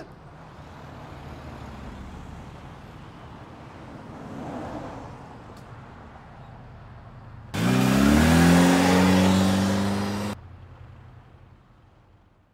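Car engine rumbling low, then about seven and a half seconds in revving hard, its pitch climbing and then holding high for a few seconds before cutting off suddenly.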